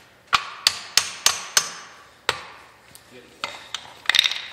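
Hammer blows on the steel spring-shackle end of a Model A Ford front leaf spring and axle, knocking the shackles loose. Each strike rings briefly. A quick run of about five strikes comes first, then a single blow, then lighter knocks near the end.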